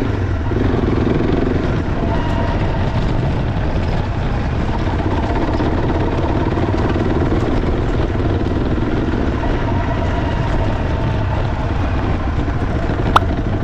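Honda CRF300 Rally's single-cylinder engine running steadily under way, with one sharp click near the end.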